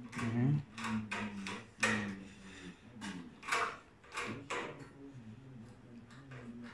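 A hand screwdriver driving a screw into an IKEA Hyllis galvanized steel shelf frame: a string of sharp metallic clicks, scrapes and rattles from the sheet-steel rail and uprights.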